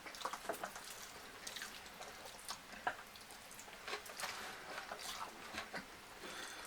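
Close-up wet eating sounds: chewing and smacking on chicken, rice and gravy, with many short irregular clicks.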